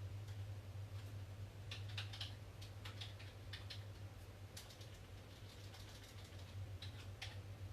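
Computer keyboard typing in short, irregular runs of clicks over a steady low electrical hum.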